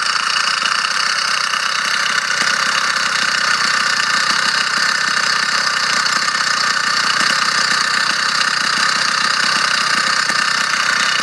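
Motorized bicycle engine running steadily, with a rattle from inside the engine whose cause the owner can't figure out, though the engine otherwise runs fine and strong.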